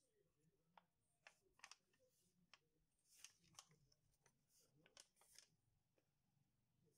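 Faint rustling and crinkling of a folded paper invoice being handled, unfolded and refolded by hand, in a string of short crackles.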